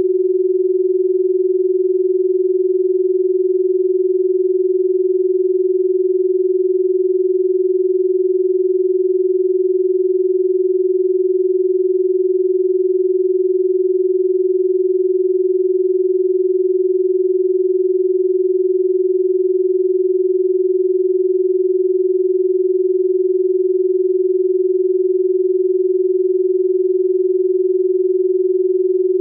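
A single steady electronic sine tone held at one low-mid pitch, with no change in pitch or loudness.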